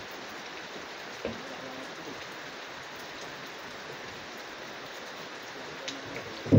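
Steady hiss of rain falling, with a dull knock about a second in and a heavy thud right at the end as logs are handled onto a truck bed.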